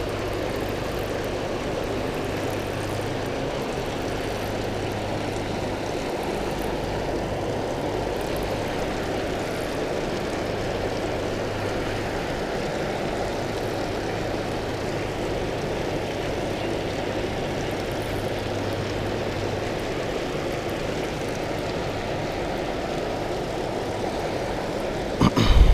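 Steady rush of water pouring over a spillway, unchanging throughout, with a brief louder knock near the end.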